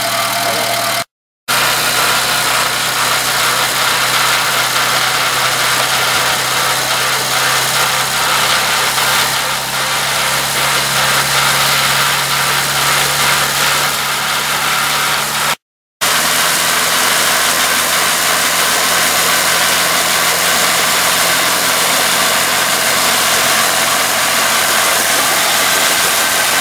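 Engine of a homemade helicopter running steadily with its main rotor turning; the sound drops out twice for a moment.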